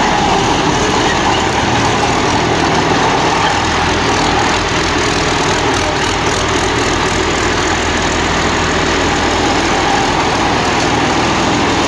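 Diesel engine of a customised tracked rice combine harvester running steadily.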